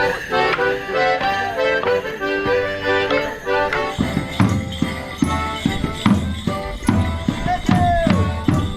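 Live English folk dance music played on an accordion, with jingling bells, accompanying Molly dancers. About halfway through, a steady beat of low thuds comes in under the tune.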